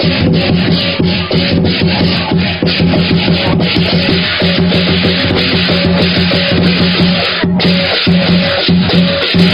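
Chinese lion dance percussion playing continuously: rapid, dense clashing of cymbals over steady drum and gong tones, with a brief break in the clashing about seven and a half seconds in.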